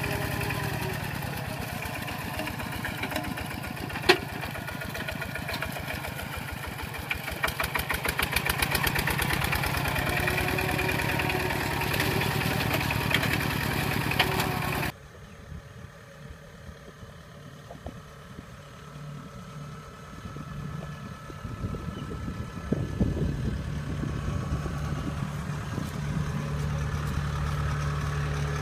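A two-wheel walking tractor's single-cylinder diesel engine runs under load with a fast, even pulse as it drags a disc plough through paddy mud, with one sharp knock about four seconds in. About halfway the sound cuts off suddenly to something much quieter, and later a bigger engine, a tracked combine harvester's, builds to a steady low idle with some clatter.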